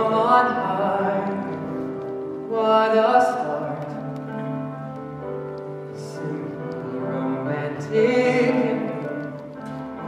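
Singing with instrumental accompaniment, in the style of a stage-musical song. The voice holds long, wavering notes in three phrases, starting at the beginning, about two and a half seconds in and about eight seconds in, over steady low accompaniment.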